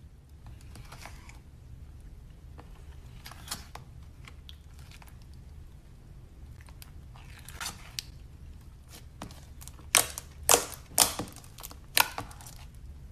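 Glitter slime made from Elmer's glue being worked by hand, giving scattered sticky crackles and squelches, then four sharper, louder pops close together near the end.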